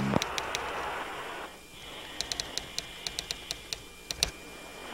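Quick, irregular runs of light key-like clicks from a typing sound effect, with a sharper click near the end. Under them are a faint steady hiss and a thin high tone.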